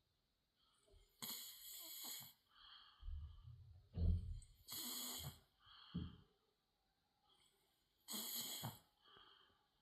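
A sleeping girl snoring: slow, noisy breaths about every three to four seconds, with a loud, low snore around the middle.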